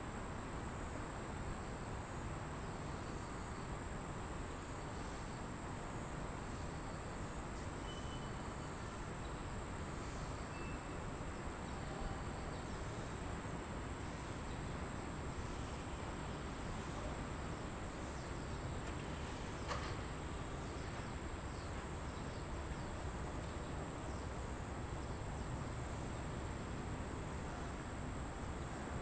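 Steady high-pitched drone of insects over a low rumble of outdoor background noise, with one faint click about two-thirds of the way through.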